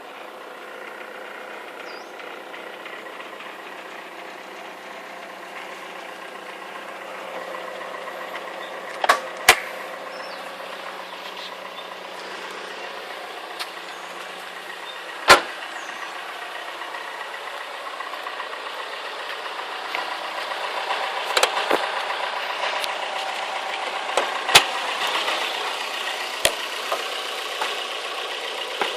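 Toyota 4A-GE 20V Silvertop four-cylinder engine idling with a constant clicking sound, a noise whose cause the owner has not yet found. A handful of sharp, louder clicks stand out at irregular intervals.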